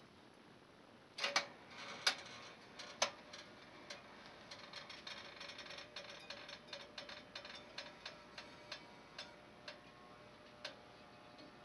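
Sunbeam Service 20-3 automatic toaster: a few sharp clicks about a second in as the bread lowers itself into the slots, then light, irregular ticking from the toaster as it toasts, the ticks growing sparser toward the end, over a faint steady hum.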